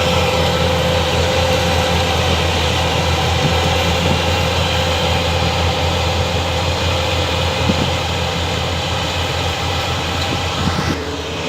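Rice combine harvester running, a loud steady engine drone with a constant hum; it dips briefly near the end.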